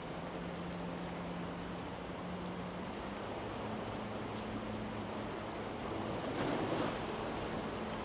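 Steady wash of sea surf, swelling briefly about six and a half seconds in, with a faint low steady hum underneath.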